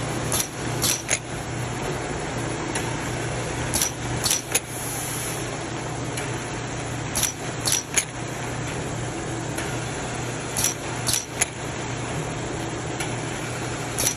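Automatic powder filling line running with a steady machine hum. Every three and a half seconds or so comes a quick cluster of about three sharp clicks and clacks as the jars are moved along under the filler. A short hiss follows the second cluster.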